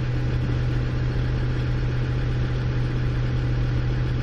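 Land Rover Discovery 2 Td5 five-cylinder turbodiesel idling steadily just after a cold start, heard from inside the cabin.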